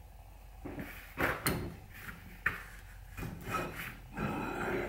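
A cast-iron Richards Wilcox woodworking vise being handled: a few sharp metal knocks and clunks in the first two and a half seconds, then scraping and rubbing of metal parts that grows louder near the end.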